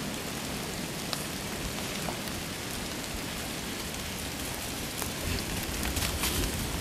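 A steady even hiss, with the rustle and crunch of dry beech leaves getting louder in the last couple of seconds as a dog runs through the leaf litter close by.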